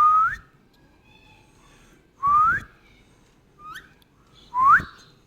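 Indian ringneck parakeet whistling: three loud, clear rising whistles about two seconds apart, each sweeping upward over about half a second, with a short faint one between the last two.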